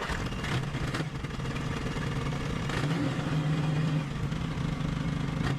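The 1955 Jeep Willys Wagon's engine running steadily.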